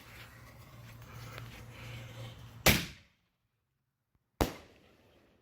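Two loud bangs from an aerial firework shell fired from a mortar tube: the first comes about two and a half seconds in and cuts off short. The second comes nearly two seconds later and fades out over about a second.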